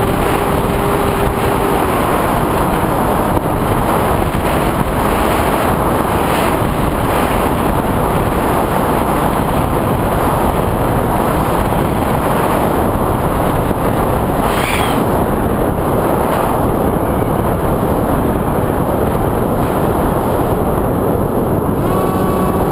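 Steady, loud rush of wind and motor noise from an FPV drone in flight.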